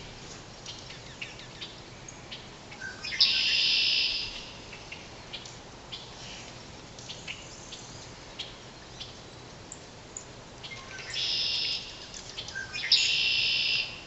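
A songbird singing three times, each song a short lower note followed by a buzzy, high trill about a second long: once about three seconds in and twice near the end. Scattered short chirps come between the songs.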